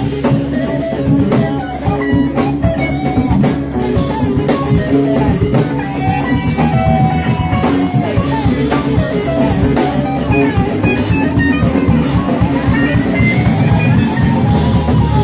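Live rock-blues band playing: a lead guitar runs through bending notes over bass and a drum kit.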